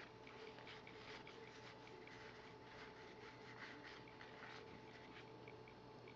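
Near silence: faint light ticks and rubbing of cardboard baseball cards being handled and flipped, over a low steady hum.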